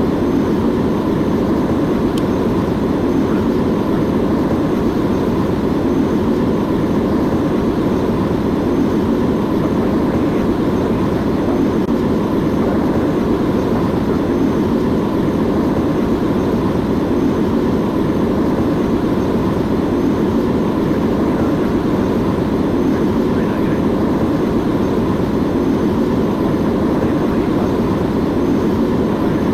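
Steady static hiss of an air traffic control radio feed between transmissions, with a faint steady tone running under it.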